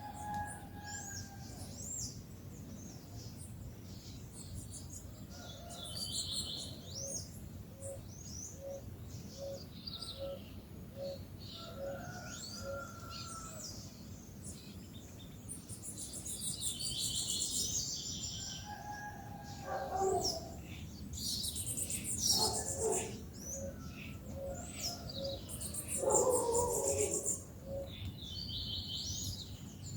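Several wild birds chirping and calling over one another, with one low short note repeated evenly about once a second in the middle; the calling grows busier in the second half.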